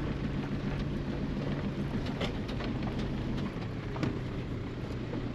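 Diesel van engine running as the van drives slowly, heard from inside the cab: a steady low hum under a rough noise with scattered faint clicks. The engine note drops a little about three and a half seconds in.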